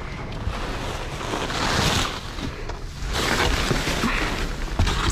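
Plastic bags and plastic wrapping rustling and crinkling as trash in a dumpster is shifted by hand, in two swells.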